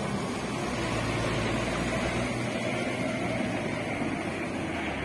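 Diesel engines of heavy tanker trucks, the nearest a Mitsubishi Fuso, pulling slowly in low gear: a steady low engine drone.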